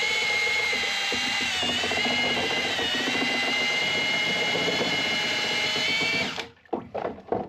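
Milwaukee cordless drill driving a mortar mixing paddle through a tub of sugar and warm water, a steady motor whine that sags briefly in pitch under load a little under two seconds in, then stops about six seconds in. It is dissolving sugar into bee winter feed syrup. A few knocks follow after the drill stops.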